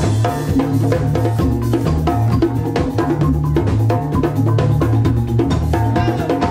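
Live band music: an electric bass line moving between low notes under a steady groove of hand drums and other percussion.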